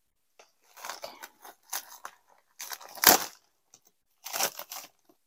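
A padded plastic Priority Mail envelope being torn open by hand, with the bubble wrap inside crinkling as the package is pulled out: several short bursts of tearing and rustling, the loudest about three seconds in.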